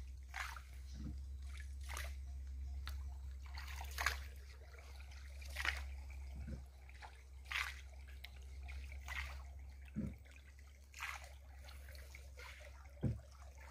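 Water splashing and trickling against a small canal boat, in short strokes coming about every two seconds, with a faint steady low rumble beneath, typical of the boat being paddled along.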